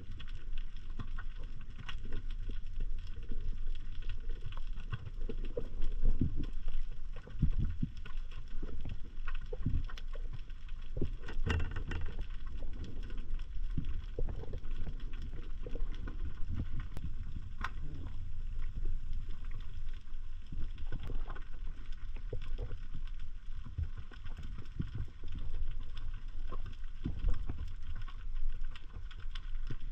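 Underwater sound picked up through an action camera's waterproof housing: a muffled, steady low rumble of moving water with irregular small clicks and crackles throughout.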